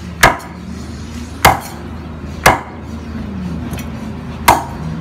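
A Phaluong cleaver chopping muscovy duck pieces on a round wooden chopping block: four sharp chops, the first three about a second apart and the last after a two-second gap.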